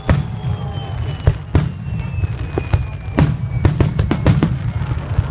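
Fireworks bursting in a display: sharp bangs, coming thick and fast for a second and a half about three seconds in, with a thin whistle sliding down in pitch through the first three seconds, over a steady low rumble and music.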